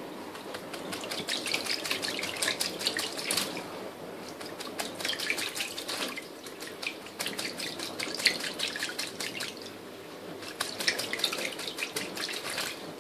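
A kakariki bathing in shallow water in a stainless steel sink, beating its wings and splashing in four bouts of a second or more each, over the steady run of the tap.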